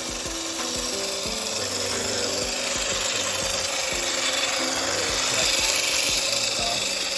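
Steady grinding whir of an RC rock crawler's electric motor and geared drivetrain as it drives over the trail, with background music carrying a stepping melody underneath.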